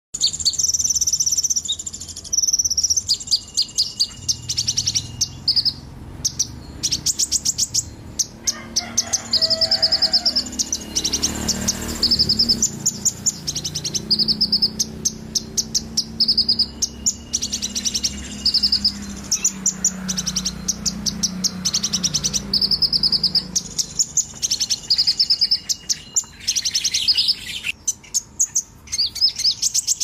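Konin songbird singing continuously: rapid strings of high, repeated chirps in phrases of a second or two, one after another with short gaps.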